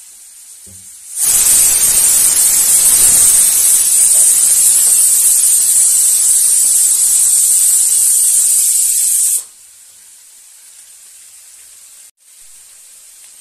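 Pressure cooker whistling: a loud jet of hissing steam that starts suddenly about a second in, holds for about eight seconds and cuts off abruptly. This is the whistle that signals the cooker of mung dal has come up to pressure. Under it a much fainter steady sizzle comes from vegetables frying in the wok.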